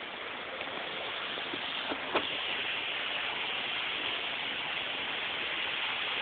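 Indoor mall fountain splashing as a steady rush of water that grows slowly louder, with a single sharp click about two seconds in.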